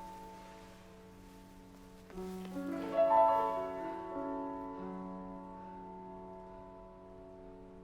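Improvised piano music: sustained chords ring on, a new cluster of notes is struck about two seconds in with a louder flurry just after, and then the notes are left to ring and slowly fade.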